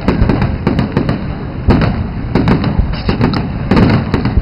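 Aerial fireworks display: shells bursting in a dense run of sharp bangs, several a second, over a continuous low rumble.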